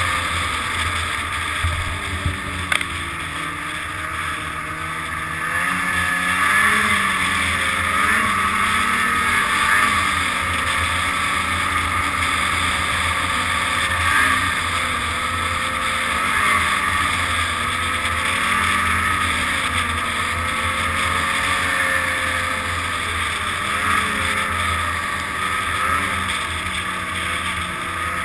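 Snowmobile engine running at speed, close up on the sled itself, its pitch rising and falling as the throttle changes, with wind rushing over the microphone.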